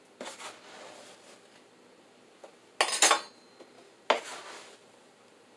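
Sugar being scooped with a plastic measuring cup from a plastic tub and leveled with a knife. A scraping rustle comes first, then two sharp knocks with a clink, just under three seconds in and about four seconds in, as the knife and cup strike the tub.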